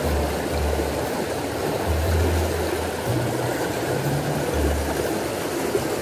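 Steady rush of a mountain stream pouring over a small rocky cascade, with the low bass notes of background music underneath.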